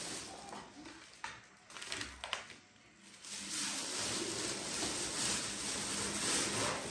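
Clear plastic grocery bags rustling and crinkling as packets are handled and pulled out of them, with a couple of short clicks in the first few seconds.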